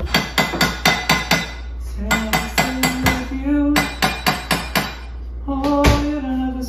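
A metal spoon clinking quickly and evenly against a glass bowl as oats are stirred, in three bursts of about six or seven clinks a second. A voice hums a few held notes in between.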